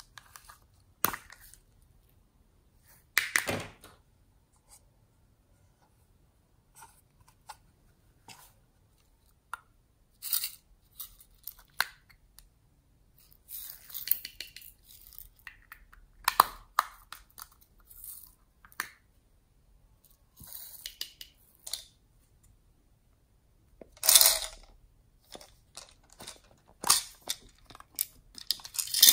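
Small plastic toy containers being handled: cases clicking and snapping open, and glitter, sprinkles and beads shaken out and rattling, in separate short clicks and rustles with quiet gaps between them.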